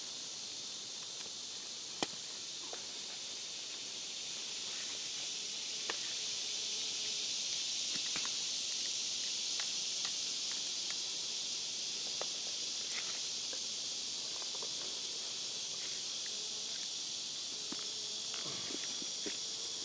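Steady high-pitched chorus of insects in summer woods, swelling slightly a few seconds in, with scattered rustles and light clicks of tent fabric and leaf litter being handled and a sharp click about two seconds in.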